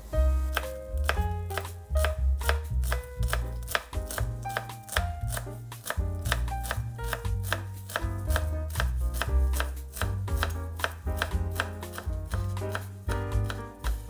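Chef's knife chopping fresh dill on a bamboo cutting board: quick, repeated blade strikes against the wood, over background music.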